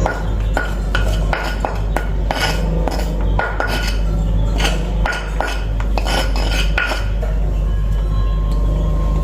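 A hard utensil knocking, clinking and scraping against a cobek stone mortar as the ground ginger, turmeric and garlic paste is worked out of it, a couple of sharp knocks a second for about seven seconds, then softer scraping. A steady low hum runs underneath.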